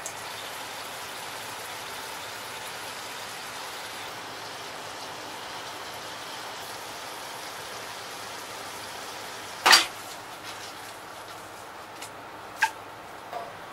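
Firefly squid, greens and tomatoes sizzling and simmering in olive oil and pasta water in a stainless steel frying pan: a steady hiss. About ten seconds in comes one loud metallic clank, then a few lighter clinks as the pan is shaken over the gas burner.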